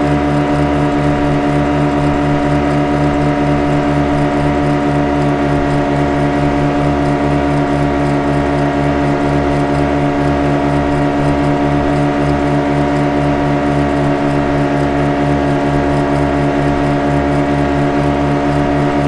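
Speedboat engine running steadily at one unchanging pitch, with a fast, even throb underneath.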